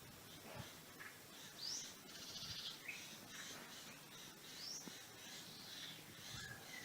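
Faint forest ambience with birds calling: scattered high chirps, including two short rising ones.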